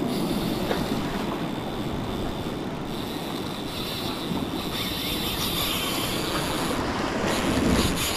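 Wind buffeting the microphone over ocean surf washing against rocks: a steady, rushing noise.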